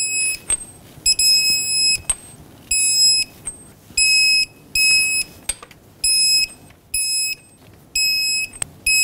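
Electronic beeper of a digital torque wrench sounding a series of short, high-pitched beeps, each about half a second, roughly one a second, with a few sharp clicks between. The beeps signal that each wheel lug nut has reached the set 76 ft-lb.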